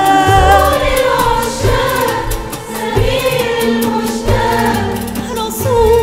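A female soloist singing an Arabic song in a wavering, ornamented line with vibrato, backed by an ensemble whose frame drums beat low beneath her voice.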